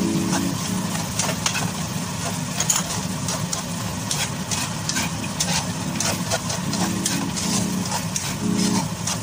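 A spatula scraping and knocking against a granite-coated wok in quick irregular strokes as chicken and peanuts are tossed and stir-fried, over a steady low hum.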